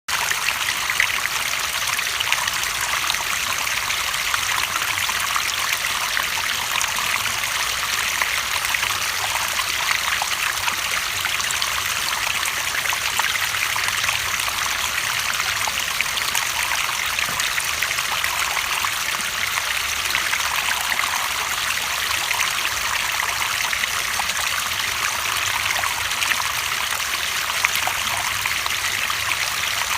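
Running water trickling and babbling steadily, like a small stream flowing over stones, with a constant bright splashing texture.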